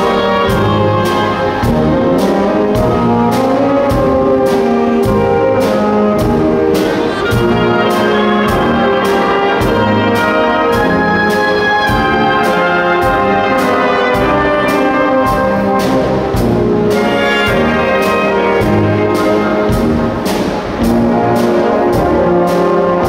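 School wind band playing an arrangement of a Disney medley: trumpets, trombones and horns with flutes, clarinets and saxophones, a mallet keyboard instrument, and a drum kit keeping a steady beat.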